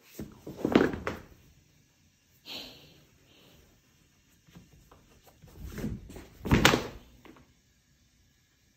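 A rolled foam yoga mat being unrolled and flopped onto a wooden floor: a few thuds with rustling. The loudest come about a second in and again about two-thirds of the way through.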